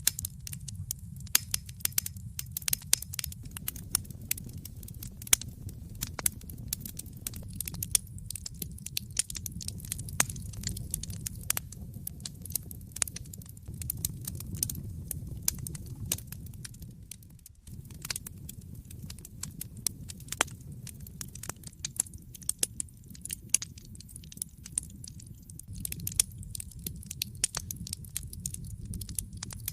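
Wood fire crackling in a fireplace: frequent irregular sharp pops and snaps over a steady low rumble, which dips for a moment a little past halfway.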